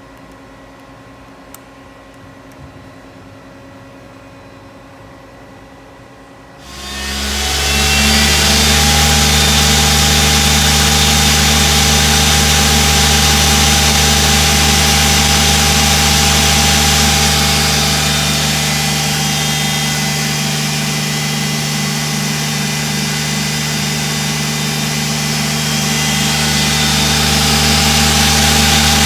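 A Daewoo Lynx 200LC CNC lathe's spindle starts up about six seconds in, after a quiet machine hum and a click, then runs steadily at speed with a hum and whine. It eases a little quieter for several seconds later on and then comes back up.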